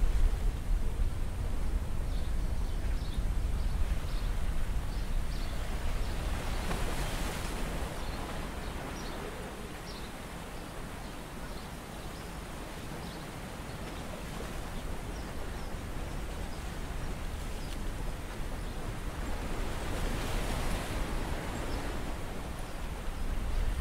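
Shallow seawater sloshing and splashing as a wader moves through it by hand and foot, with a low wind rumble on the microphone. The splashing swells twice, and faint scattered ticks run through it.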